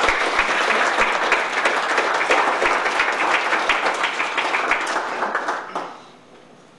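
Applause from a small seated audience of a few dozen people, dying away near the end.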